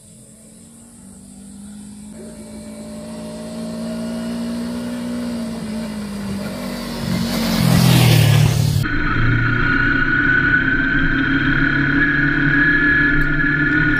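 Kawasaki Versys 250 motorcycle approaching up the road, its engine growing steadily louder, then passing close by about eight seconds in. After that, heard from the bike itself, the engine runs steadily while riding.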